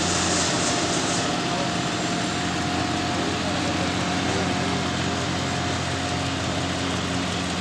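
Several John Deere tractors' diesel engines idling together: a steady drone with a faint thin tone above it that fades out near the end.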